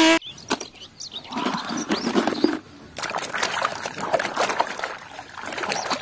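Muddy, soapy water in a plastic tub splashing and sloshing irregularly as a plastic toy train is washed in it by hand. A race car's engine sound cuts off abruptly at the very start.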